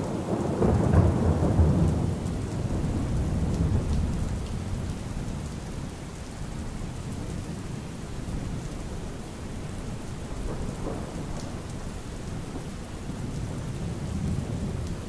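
Steady rain falling, with a long low roll of thunder in the first few seconds that dies away into the rain.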